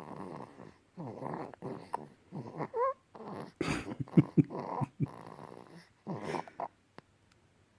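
Sleeping baby snoring: a run of short, quick snoring breaths, about one a second, with a brief squeaky rising note about three seconds in. The snoring stops about a second before the end.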